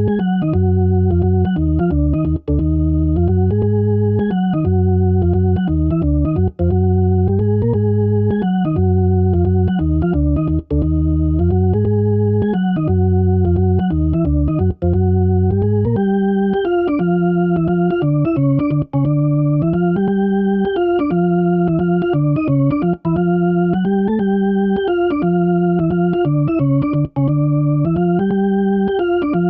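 Jazz organ track playing chords in repeating phrases of about four seconds, with brief gaps between them. About halfway through the sound changes, with less bass and brighter, fuller upper harmonics, as the signal-enhancer effects are switched in.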